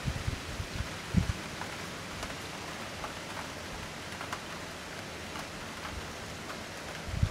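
Steady rain falling, with single drops ticking close by. A few short low thumps come in the first second or so and again near the end.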